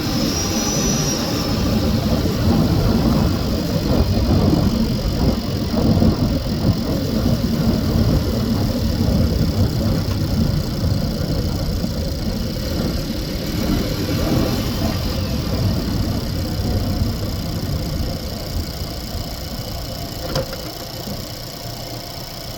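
Engine bay of a Renault Megane 1.2 TCe turbocharged petrol engine running while the car is driven, heard from under the bonnet; a dense low rumble that grows quieter over the last few seconds.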